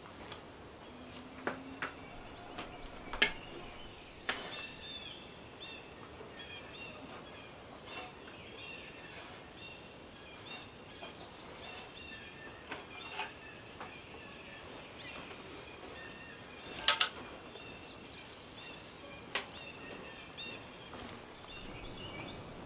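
Songbirds chirping steadily in the background, with a few sharp clacks and scrapes of a shovel working loose sawdust; the loudest clack comes about three-quarters of the way through.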